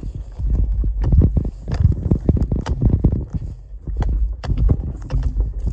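Footsteps through dry grass over rough lava rock, an irregular run of knocks and rustles, with a steady low rumble of wind buffeting the microphone.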